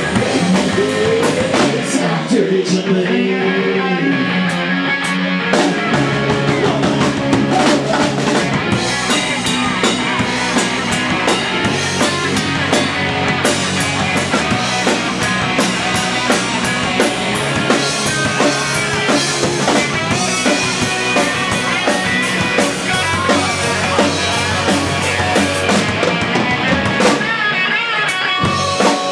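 Live rock band playing electric guitar, bass guitar and drum kit. The first few seconds are a thinner guitar passage with bent notes over light cymbal work, then the bass and full drums come in about six seconds in.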